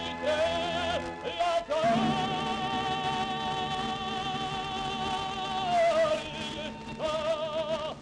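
Operatic soundtrack music: a solo singing voice with wide vibrato sings short phrases, then holds one long note for about four seconds over a sustained low accompaniment.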